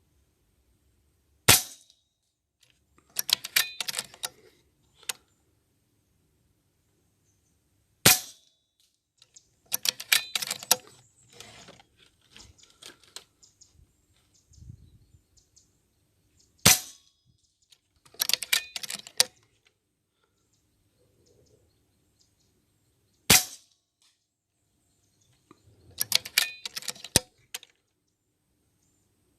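A homemade PCP air rifle fired four times, roughly seven seconds apart, each shot a sharp crack. About two seconds after each shot comes a quick flurry of metallic clicks and clacks.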